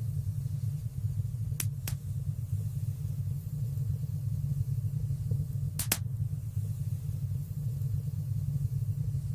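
Wood fire burning in a stone fireplace: a steady low rumble of the flames, with sharp crackling pops from the burning wood, two in quick succession a second and a half in and two more about six seconds in.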